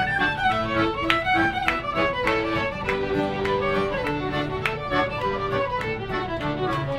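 Live band playing an upbeat fiddle tune, the fiddle leading with quick runs over a strummed acoustic guitar and an accordion, with a steady beat.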